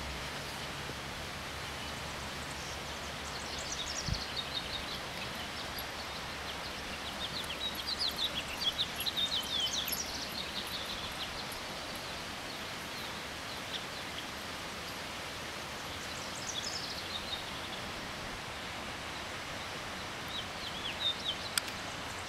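Steady rush of a river under songbirds singing in short, high-pitched bouts of chirping phrases, the busiest run a few seconds before the middle and others near the end.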